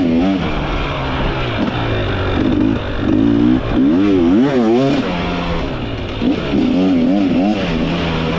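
2024 KTM 300XC two-stroke single-cylinder engine being ridden, its pitch rising and falling again and again as the throttle is worked.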